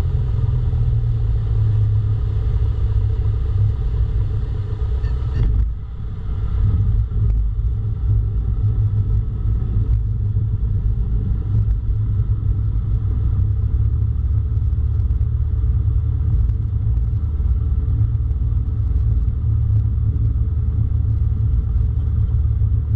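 Small single-engine plane's engine and propeller running steadily, a loud low drone heard inside the cockpit. About six seconds in, the sound breaks abruptly, with a brief dip and less hiss, then the drone carries on.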